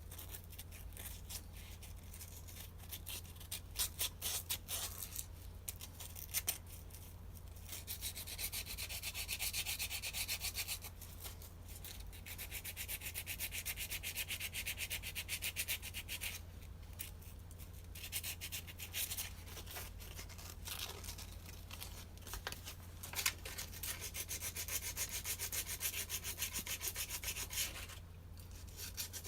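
Sandpaper rubbed rapidly back and forth by hand on small rusted metal clutch bushes, cleaning off rust so the parts move freely again. It goes in bouts of quick strokes with a few short breaks.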